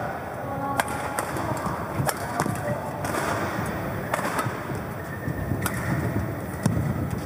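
Badminton rally: a string of sharp cracks of rackets hitting the shuttlecock, roughly a second apart, with short squeaks of players' shoes on the court mat over a steady background noise of the hall.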